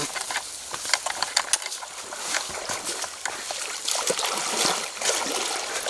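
Water splashing and trickling as people wade through a shallow stream, with many irregular small splashes and clicks.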